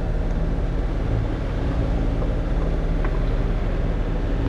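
A Valiant 40 sailboat's inboard diesel engine running steadily while under way, a low even hum, with water rushing along the hull.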